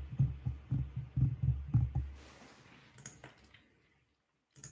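A quick run of muffled low thumps, about four a second, fading out after about two seconds, followed by a few faint clicks.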